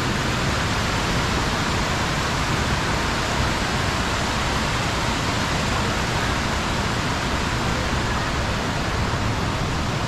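Steady, even rush of water tumbling over small waterfall cascades.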